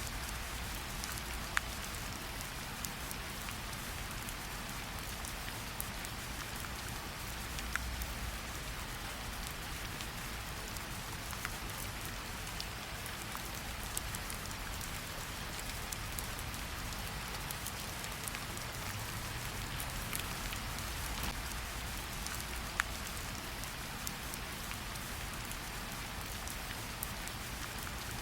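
Steady rain falling, with a wood fire crackling: single sharp pops every few seconds over the even hiss of the rain.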